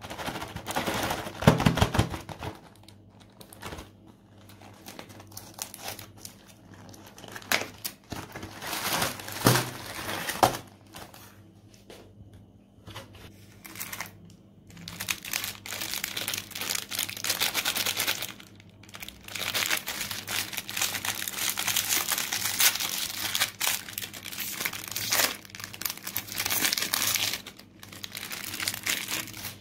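Crinkling and tearing of foil Oreo cookie wrappers as they are handled and peeled open, coming in irregular bursts with short pauses.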